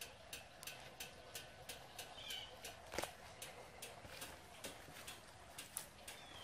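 Faint, evenly spaced ticking, several ticks a second, with one sharper click about three seconds in and a few faint bird chirps.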